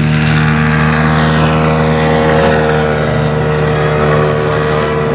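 Engine and propeller of a scale PZL Wilga RC tow plane running steadily at towing power as it pulls a glider up, a constant droning note.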